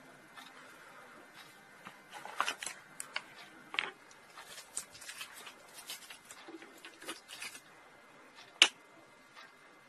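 Handling noise from a phone charger and its cable: a string of small clicks, taps and rustles. Near the end comes one sharp click at the wall socket as the charger is plugged in.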